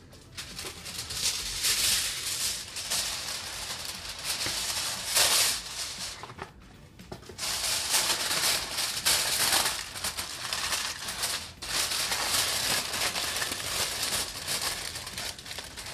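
Aluminium foil crinkling and rustling as it is spread over a glass bowl and pressed and crimped around the rim, with a short pause about six to seven seconds in.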